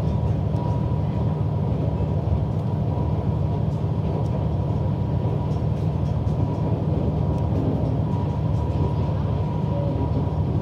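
Diesel railcar heard from inside the cabin while running at speed: a steady rumble of engine and wheels on the rails, with a faint steady whine above it.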